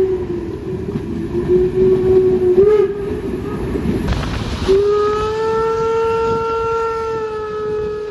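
Train horn sounding: a long, slightly wavering note over the rumble of the train, a short blast near three seconds, then a second long, steady note from about five seconds in.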